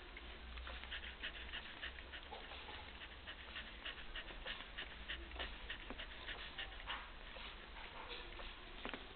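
Border collie puppies in their second week nursing on their mother: many quick, wet smacking clicks of suckling, with a few small whimpers and squeaks.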